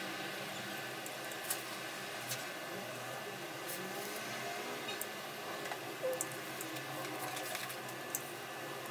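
Paracord and a plastic buckle being handled at close range: soft rustling and scattered small clicks over a steady background hiss.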